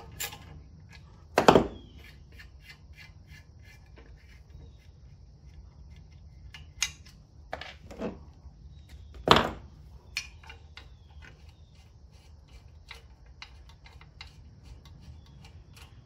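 Hands working the air cleaner back cover and its fasteners off a generator engine: scattered small clicks and rattles of parts being handled, with two louder knocks, about a second and a half in and about nine seconds in.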